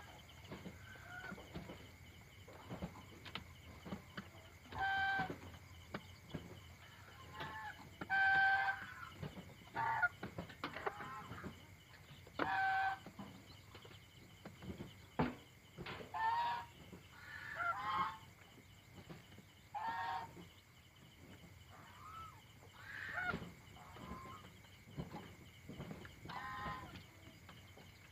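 Domestic chickens on their night roost making short, repeated clucking calls, one every second or two.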